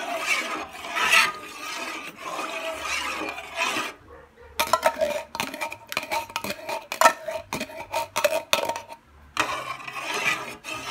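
Metal spoon stirring a thick milky corn-and-coconut mixture in a metal pot, scraping against the pot. About halfway through the stirring gives way to a run of sharp clinks of spoon on pot, and the scraping comes back near the end.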